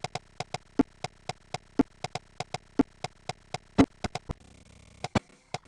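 Synthesized MIDI percussion ticking at about four short clicks a second, with a louder, lower click once a second. The regular pattern breaks off about four seconds in, leaving a few scattered clicks.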